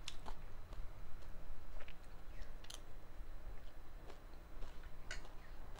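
Close-up chewing of a crunchy spicy snack mix (kurkure chatpate), picked up by a clip-on microphone, with scattered sharp crunches.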